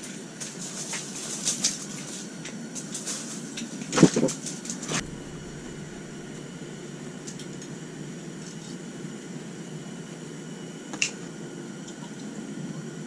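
Knocks and clicks as an ice angler moves about and sits down on slushy ice, with a sharp thump about four seconds in. Then a steady hiss, broken by a single click near the end.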